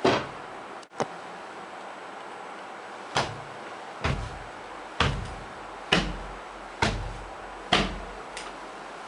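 A sharp bang, then six heavy thuds at a steady pace a little under a second apart, each with a deep low thump.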